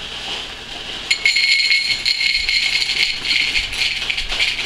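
Dry French Toast Crunch cereal pouring from its plastic bag into a bowl. A soft rustle of the bag comes first, then about a second in a dense, steady rattle of small pieces hitting the bowl, with a thin high ring over it.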